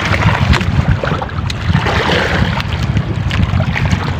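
Wind buffeting the microphone over water sloshing against the hull and bamboo outrigger of a small wooden outrigger boat on choppy sea, with a few light knocks.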